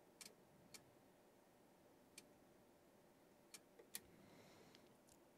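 Near silence: room tone with about half a dozen faint, sharp clicks at irregular intervals, the louder pair close together a little before the four-second mark.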